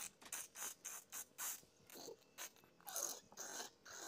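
Two kittens scuffling in a play-fight on a hard floor: an irregular run of short, scratchy scrapes and taps from their paws and claws, several a second, with a fuller scuffle about three seconds in.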